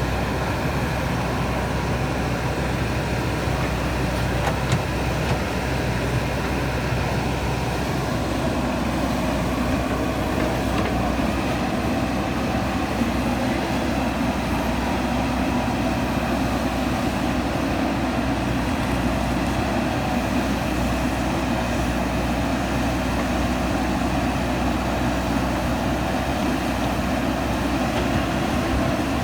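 JCB 3DX backhoe loader's diesel engine running steadily under working load, with a change in its note about eight seconds in.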